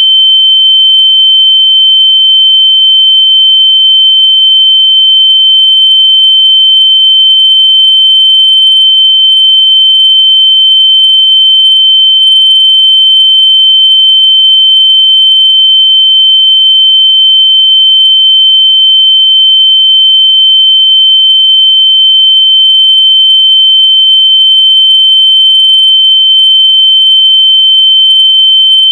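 A loud, steady, high-pitched electronic tone held at one pitch. It is a locator noise meant to be played through lost AirPods so they can be found by ear.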